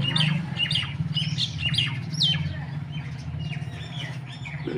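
Small birds chirping in quick, repeated short calls, thinning out after about halfway, over a steady low hum.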